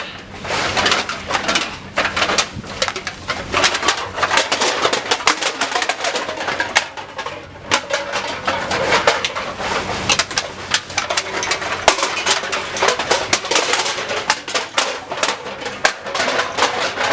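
Aluminium cans clattering in a dense, rapid rattle as a bag of them is emptied into a can collection machine.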